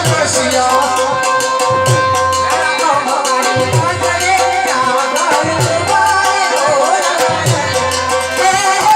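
Indian folk music: hand drums of the tabla kind keep a steady beat with heavy low strokes under a wavering melody line, with quick rattling ticks on top.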